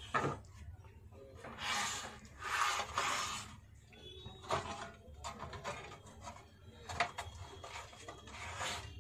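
Handling noise as a voltage stabilizer's parts and casing are fitted back together: two scraping, rubbing swishes about two and three seconds in, and sharp knocks and clicks scattered through.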